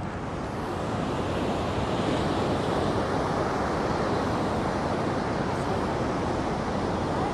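Steady, even rushing of wind across the phone's microphone, mixed with the surf of the sea.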